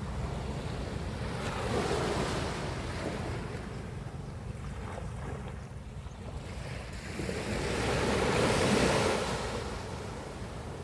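Ocean waves surging and washing on the shore, with two louder swells, about two seconds in and again near nine seconds.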